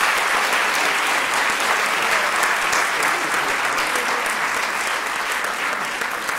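Theatre audience applauding: dense, steady clapping from many hands, tapering slightly near the end.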